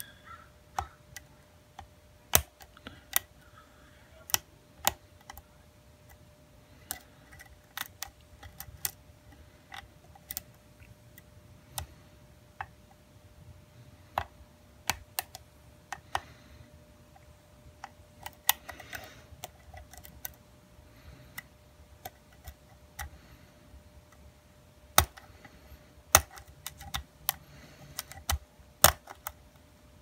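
Lock pick and tension wrench working in the keyway of a Schlage padlock as its pins are picked: scattered sharp metallic clicks, coming more closely together near the end, over a faint steady hum.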